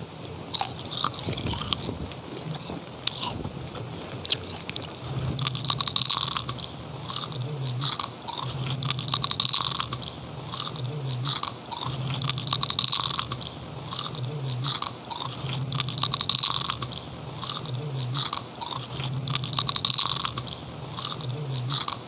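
Someone biting and chewing krupuk, crisp Indonesian crackers, with a dry crunch on each bite. The crunching starts sparse, then comes in louder bouts about every three and a half seconds.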